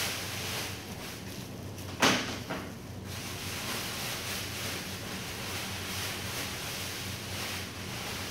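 Woven plastic sack rustling as its neck is cinched shut with a cord, with a sharp rustle about two seconds in and a smaller one just after. A steady hum runs underneath.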